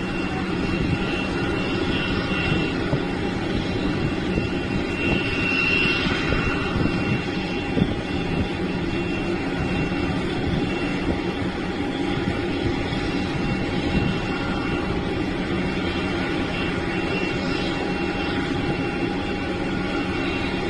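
Jet aircraft engine sound: a steady whine with a high tone over a broad, even rumble.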